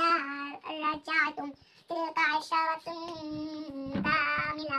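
A young girl reciting Arabic from the Quran in a melodic chant, in phrases with long held notes and a brief pause for breath.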